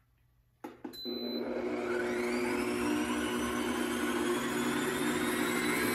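Pampered Chef Deluxe Stand Mixer starting up after a couple of clicks about a second in, then its motor whirring steadily as the whisk beats the frosting, the pitch rising slightly at first as it comes up to speed.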